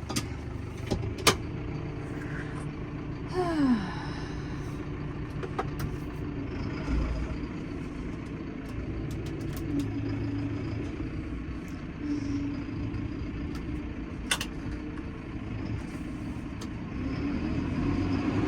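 Massey Ferguson 5S.145 tractor's diesel engine running steadily, heard from inside the cab, with a few sharp clicks and a short falling whine about four seconds in; the engine gets louder near the end.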